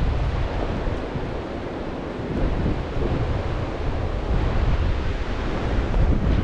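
Strong wind buffeting the microphone: a continuous rush of noise with a heavy low rumble that swells and eases in gusts.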